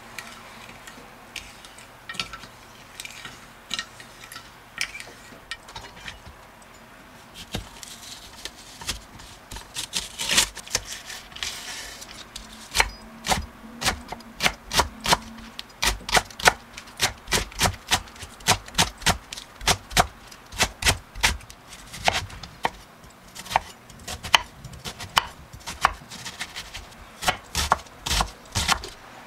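Chef's knife chopping green onion and onion on a wooden cutting board: quick knocks, about two to three a second, in runs with short pauses, starting about a third of the way in. Before that come light taps of a wooden spoon stirring in a glass dish.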